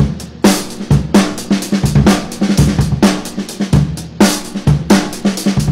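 Drum kit playing a funky groove of kick, snare and hi-hat, with about two strong hits a second. It is played and recorded to emulate a sampled Motown drum sound.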